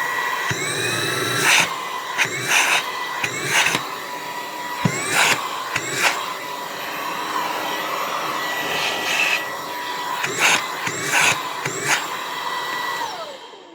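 Brigii MX30 cordless handheld vacuum's brushless motor running with a steady high whine, its pitch jumping up briefly many times, with sharp knocks in between. Near the end the whine falls in pitch and dies away as the motor is switched off and spins down.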